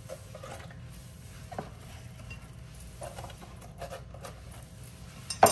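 Watermelon chunks being pushed by hand into a Ninja blender's plastic jar half full of water: a few soft, scattered knocks, with one sharper, louder knock at the very end.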